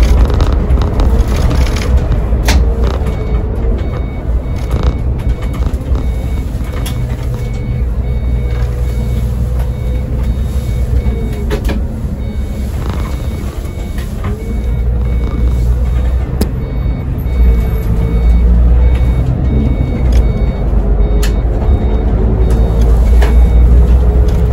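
Iveco Crossway Line bus with an Iveco Cursor diesel and ZF six-speed automatic gearbox driving on the road, heard from the driver's cab: a low engine rumble with road noise, its note dipping and rising again several times and getting louder in the second half. A faint beep repeats evenly through most of it.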